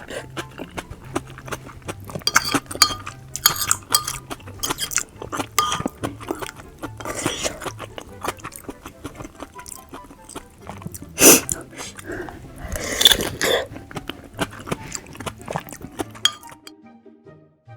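Close-miked eating sounds: chewing, several louder slurps and clinks of utensils against a dish, over quiet background music with a repeating low beat. The sound drops away almost completely shortly before the end.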